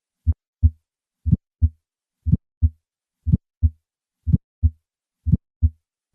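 Recorded heart sounds: a regular lub-dub, the first and second heart sounds as pairs of short low thumps about once a second, with quiet between the beats.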